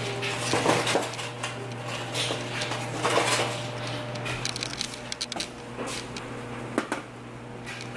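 Eggs being put into a pot of boiling water: light clinks and knocks of pot handling over a steady hiss and a low hum.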